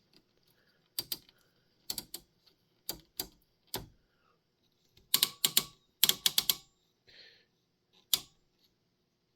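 Rotary selector switch on a BWD 525 oscilloscope clicking through its detent positions: single clicks and pairs about a second apart, then quick runs of several clicks about five and six seconds in, and one last click near the end.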